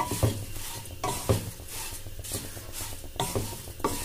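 A spatula stirring and scraping dry paper poha (thin flattened rice flakes) in a non-stick pan, the flakes rustling, with a stroke about once a second. The poha is being dry-roasted on low flame to make it crisp.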